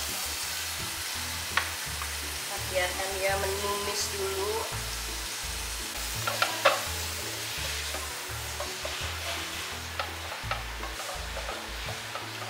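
Pieces of beef sizzling as they brown in hot oil with sautéed garlic and onion in a granite-coated nonstick pot. They are stirred with a spatula, which knocks a few times against the pot, loudest about six and a half seconds in.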